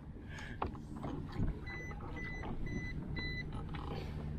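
Four short, high electronic beeps about half a second apart, after a couple of soft knocks, over steady low background noise.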